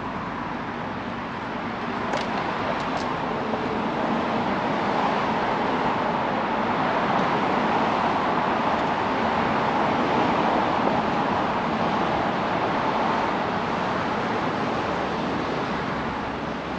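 Road traffic noise from a passing vehicle, swelling to a peak about halfway through and easing off again.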